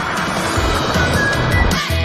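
Music with a pulsing bass beat and a short melody on top, over a steady wash of noise, with a brief drop just before the end.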